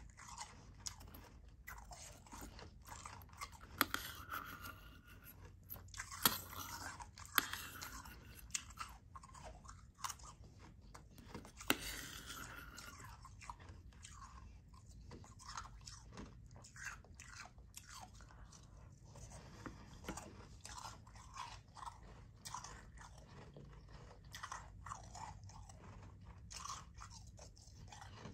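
Soft, powdery ice being bitten and chewed close to the microphone: a steady run of small, fine crunches, with a few louder sharp crunches in the first half.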